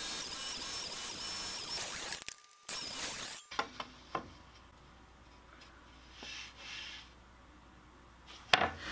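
Table saw blade cutting kerfs across a poplar strip on a crosscut sled: two stretches of cutting noise with a faint whine, the first about two and a half seconds and the second under a second, each breaking off abruptly. After that it is quiet, with a couple of light knocks of wood being handled.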